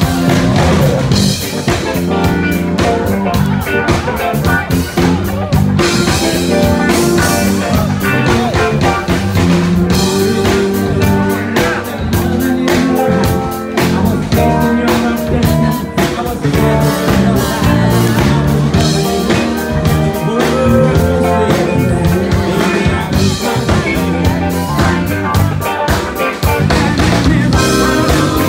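A live rock band playing, with electric guitar and drum kit keeping a steady beat.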